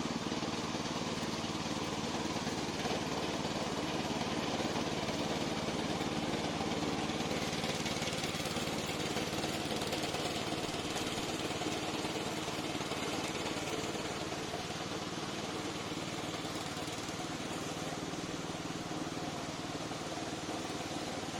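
The gasoline engine of a tracked remote-control lawn mower running steadily, a little quieter in the second half.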